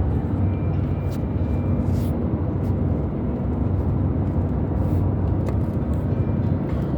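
Steady road and engine noise heard from inside a moving car, with a low hum, and a few faint, short, sharp sounds at uneven intervals.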